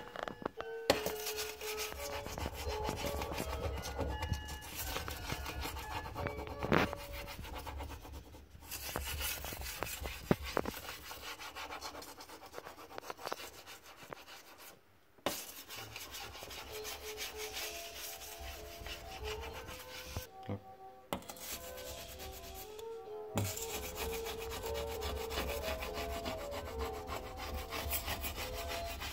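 Razor-blade scraper scraping back and forth over a glass-ceramic cooktop in many quick strokes, clearing cleaner residue off the glass, with a few short pauses. Faint background music plays underneath.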